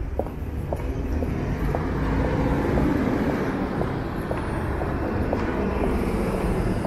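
Road traffic on a city street, a steady low rumble that swells about two to three seconds in as a vehicle passes. Footsteps tick faintly and evenly, about two a second.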